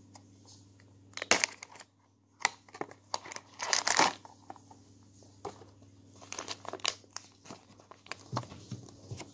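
A cardboard blind box and its paper contents handled and torn open: irregular crinkling and tearing of the packaging, loudest about a second in and again around four seconds in, with lighter rustles after.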